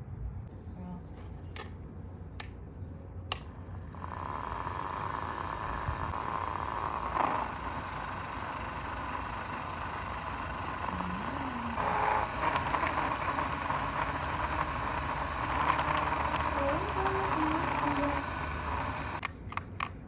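A few sharp clicks, then a small electric power tool starts about four seconds in. It runs steadily with a high whine and stops shortly before the end.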